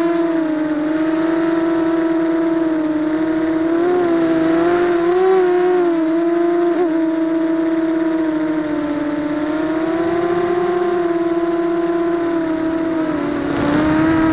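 ZMR250 racing quadcopter's motors and propellers whining, recorded by its onboard keycam, the pitch rising and falling with the throttle, with a louder surge near the end.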